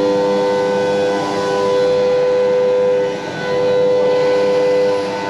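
Two high-speed milling spindles of a 5-axis gantry CNC machine cutting aluminium: a steady, loud whine made of several held tones over the noise of the cut, dipping briefly about three seconds in before carrying on.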